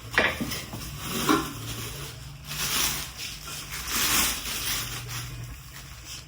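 Packaging being handled and unwrapped from a stainless steel cooking pot set: a couple of light knocks, then two longer spells of rustling and crinkling.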